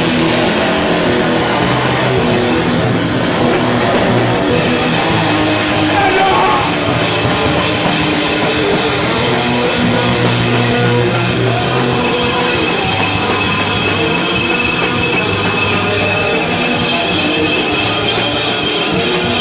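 A live rock band playing loud, steady music on guitar and drum kit.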